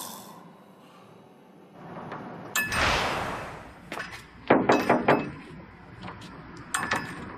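A glass door with a metal bar handle being handled and pushed: a short metallic ding at the start, a swell of noise, then a quick run of clinks and knocks.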